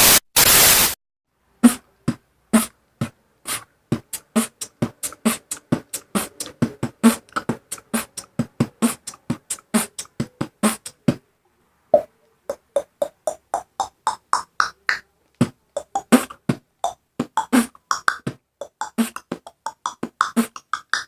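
Beatboxing: mouth-made kick and snare hits in a fast, steady rhythm, with a brief pause about halfway through. It opens with two short bursts of hiss. In the second half, pitched blips that climb step by step are mixed into the beat.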